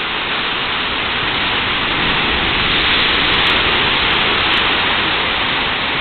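Rough sea: waves breaking and foaming over a rock breakwater, a dense rushing wash that swells to its loudest about halfway through and then eases a little.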